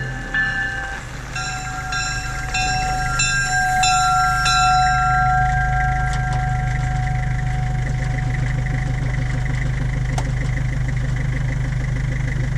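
Leslie RS5T five-chime locomotive horn sounding a chord that fades away over the first several seconds, with evenly spaced ringing strikes about every half second in the first half. A steady low engine hum comes up under it a few seconds in and keeps running after the horn dies out.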